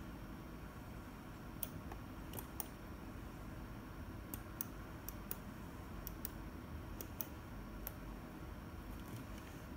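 Scattered faint plastic clicks of buttons pressed on a handheld frequency counter and the radio's push-to-talk microphone, over a low steady background hum.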